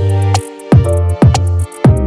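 Electronic background music with a deep bass line, a steady beat of hard drum hits and fast hi-hat ticks.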